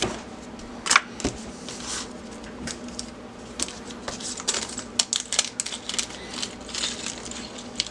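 Small hard plastic parts and packaging of a laser-sight kit being opened and set out: irregular clicks, taps and light rattles, with a couple of louder clicks about a second in, over a faint steady hum.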